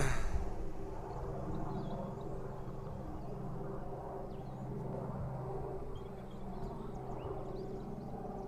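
An engine running steadily at idle, a low even drone, with a few faint bird chirps over it.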